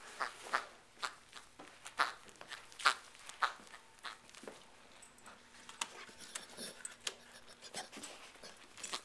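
Black Labrador mouthing a squeaky duck toy, the squeaker giving a run of short squeaks, most of them in the first four seconds and sparser after.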